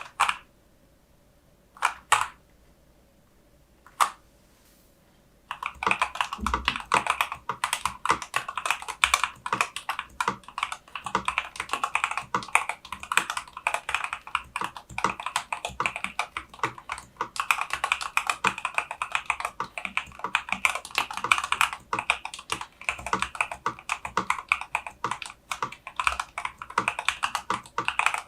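Typing on a MACHENIKE CK600 mechanical keyboard with lightweight linear switches: a few single key clicks spaced about two seconds apart, then fast, continuous typing from about five seconds in.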